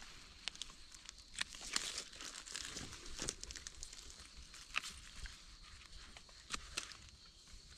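Dry leaf litter rustling and crackling under gloved hands, with scattered sharp clicks and snaps, as wild mushrooms are picked from the forest floor and trimmed with a knife.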